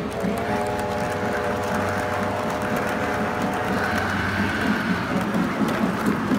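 O scale model steam train running along hand-laid track, its motor and wheels making a steady rumble with regular pulses. A held multi-note tone sounds over it for the first four seconds or so, followed by a fainter, higher tone.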